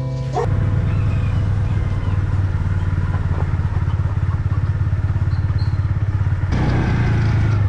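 Motorcycle engine idling steadily, with a shift in its sound about six and a half seconds in.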